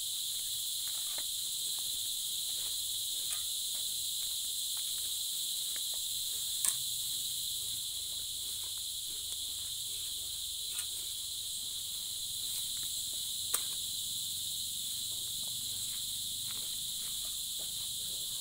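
Steady high-pitched insect chorus, with a few faint knocks and scrapes from a bolo blade working soil into a planting hole.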